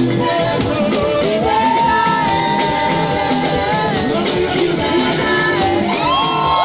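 Live gospel song: a lead singer and backing vocalists with a band, amplified through PA speakers. Long held sung notes, with several voices holding a chord together near the end.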